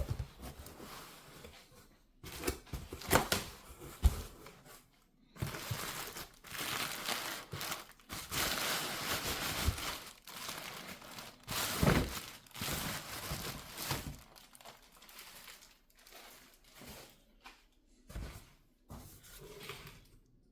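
Packing material and a cardboard shipping box being handled during unpacking: crinkling and tearing, with a few sharp knocks in the first four seconds and a long stretch of dense rustling in the middle, thinning out to occasional handling noises near the end.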